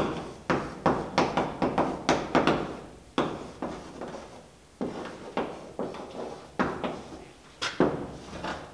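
Chalk writing on a blackboard: a quick run of taps and scratches as the letters are formed, in several bursts with short pauses between them.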